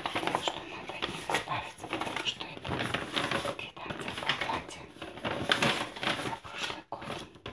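Sheets of paper and newsprint rustling and crinkling in irregular crisp bursts as a hand sorts through a stack of documents.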